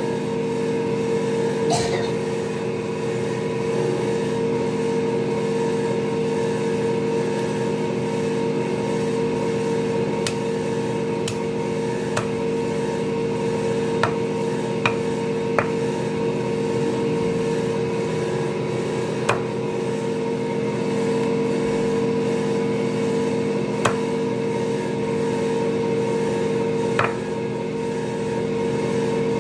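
A large knife chopping chicken into pieces on a wooden block: about ten sharp, separate chops spaced irregularly. Under them a motor runs with a steady loud hum.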